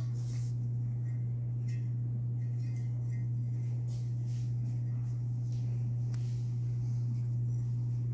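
Steady low electrical hum, unchanging throughout, with a few faint light clicks as glass candle jars are handled.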